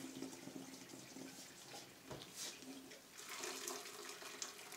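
Boiling-hot pasta water poured from a pot through a metal colander into a stainless-steel sink, draining faintly, with a light knock about two seconds in.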